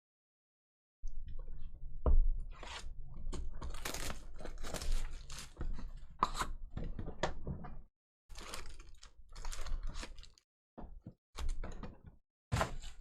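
Wrapping and card packs being torn open and crinkled, in irregular bursts of rustling and crackling with short silent gaps and a sharper knock about two seconds in.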